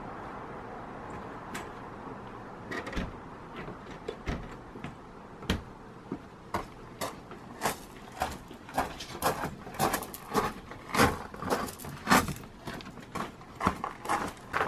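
Footsteps on a wooden boardwalk and steps: sparse knocks at first, then a quicker run of steps growing louder as the walker comes up close.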